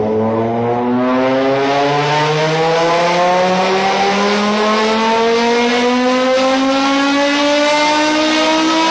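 Car engine accelerating in one long pull, its pitch climbing smoothly and steadily with no gear change.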